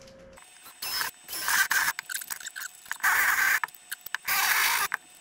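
Drill boring holes through the plastic of a dashboard cubby. It runs in four short bursts of about half a second each, with pauses between them.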